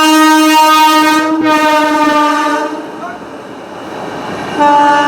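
WAP-7 electric locomotive's horn sounding a long blast that cuts off after about two and a half seconds, then a second blast starting near the end, as the train runs through.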